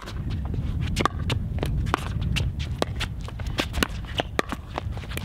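Pickleball rally: paddles striking the hollow plastic ball in a quick run of sharp pops, with players' shoes stepping and scuffing on the hard court. A steady low wind rumble lies underneath on the microphone.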